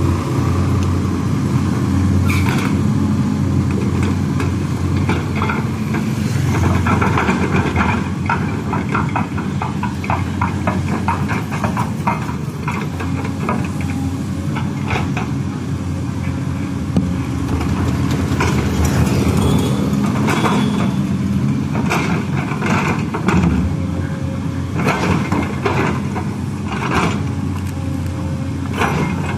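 LiuGong crawler excavator's diesel engine running steadily under digging load, with spells of clanking and scraping as the bucket works through loose soil.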